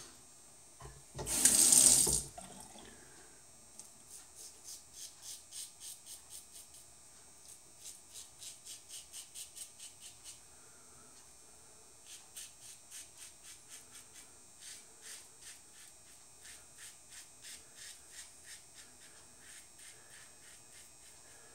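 A tap runs briefly about a second in. Then a double-edge safety razor scrapes through lathered stubble in short, quick strokes, about four a second, in several runs with pauses between them.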